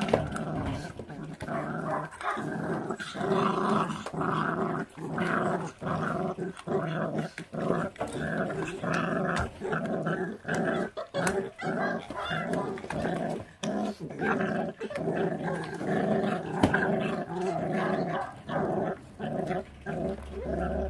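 Feral-dog puppies growling over raw meat in long runs of short, back-to-back growls, one after another: food guarding while they eat.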